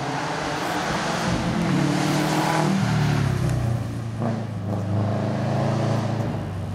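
Rally car running hard on a gravel stage and passing close by. The engine note climbs, then drops about three seconds in and carries on at speed, over a hiss of tyre and gravel noise.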